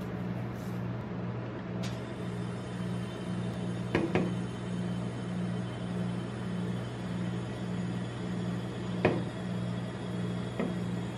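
Steady low hum of a rolled-ice-cream machine's refrigerated plate, with a few sharp knocks as a drinks can and a paper cup are handled on its steel pan: two close together about 4 s in, the loudest about 9 s in, and a lighter one near the end.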